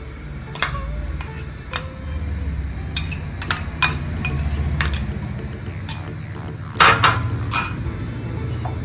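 Grated fresh coconut poured from a bowl into a non-stick kadhai, with about ten sharp clinks and taps of kitchenware against the bowl and pan, the loudest a quick cluster about seven seconds in.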